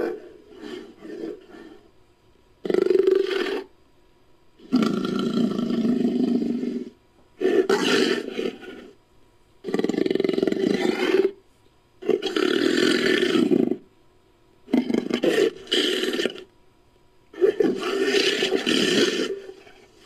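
Big-cat roars and growls pieced together from lion and tiger recordings as a Homotherium creature sound effect. About eight separate calls, each one to two seconds long, follow one another with short pauses between.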